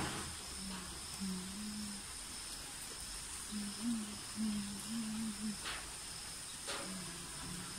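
Steady high-pitched insect chorus, crickets or cicadas, with short low calls repeated in quick runs underneath and a few faint clicks.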